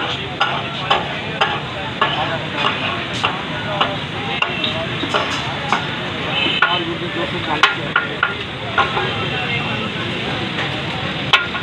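Mixed kata-kat (chopped offal) frying on a large flat iron griddle in ghee, sizzling steadily, while metal spatulas stir and scrape it. Irregular sharp clinks of steel striking the griddle come a few times a second.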